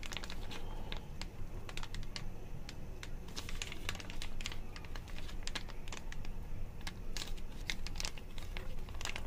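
Mayonnaise being squeezed out of its container onto sliced salad vegetables, spluttering and crackling in a run of small irregular clicks.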